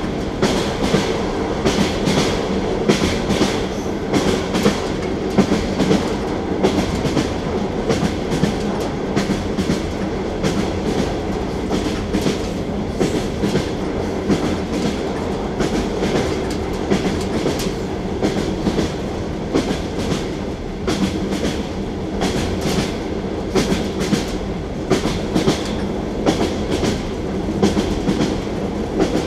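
Russian passenger train carriage running on jointed track, heard from inside: a steady rumble and hum with the wheels knocking in repeated clickety-clack clusters as they cross the rail joints.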